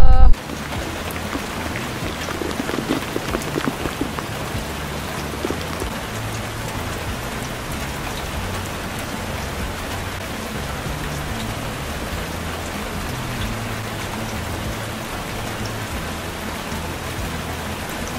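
Heavy rain falling steadily, a little louder for a moment a few seconds in.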